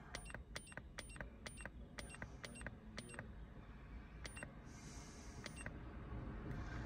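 A handheld TDB1000 key programmer's arrow button pressed over and over, each press giving a short, sharp tick, about three to four a second for roughly three seconds as it scrolls through the menu. A faint hiss follows near the end.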